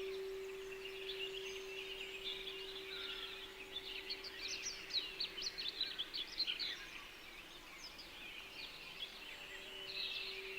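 Small songbirds chirping and twittering in quick high notes, busiest around the middle. Under them runs one steady low sustained tone, a meditation frequency tone like a singing bowl's hum, which fades in the middle and swells back near the end.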